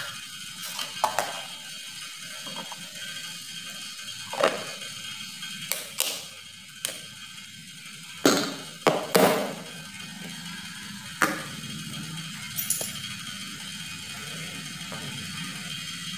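Scattered knocks and clinks of kitchenware: a plastic ladle against a steel bowl and a plastic lid and container being handled over it, about half a dozen separate knocks, the loudest two close together around eight to nine seconds in.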